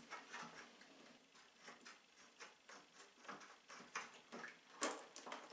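Faint, irregular metallic clicks and ticks as the chrome-plated brass nuts of a shower bar valve are unscrewed by hand from the wall fittings, with a sharper click about five seconds in.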